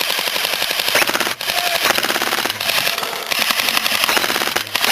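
Airsoft guns firing on full auto: a rapid, continuous clatter of shots, with brief breaks about a second and a half in and near the end.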